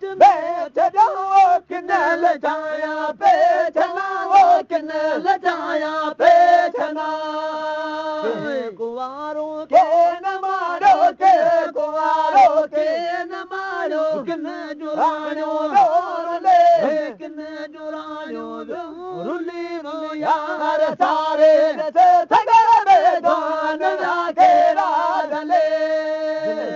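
Male voices chanting a Sindhi maulood, a devotional song in praise of the Prophet: a wavering, ornamented melody over a steady held low note.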